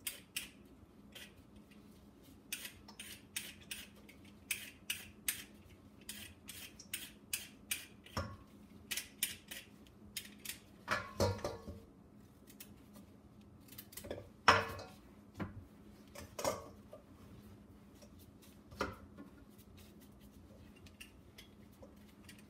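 Carrots being peeled by hand with a blade: a quick run of short scraping strokes, a few a second, with a couple of louder clatters of utensils near the middle.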